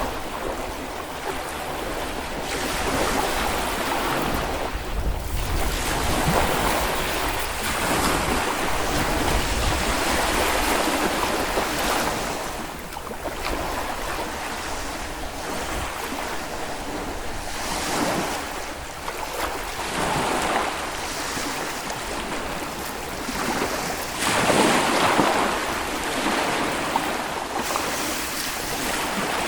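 Small Baltic Sea waves washing onto a sand beach, a steady hiss that swells and falls back every few seconds, with some wind buffeting the microphone.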